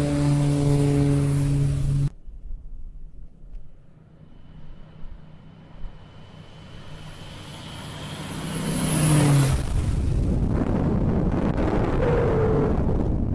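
Propeller airplane engine droning steadily, cut off abruptly about two seconds in. A rushing noise with a thin whistle then swells and breaks into a loud, sustained rumble.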